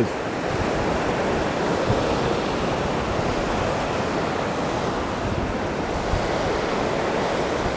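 Rough sea water, a steady rushing roar of surf.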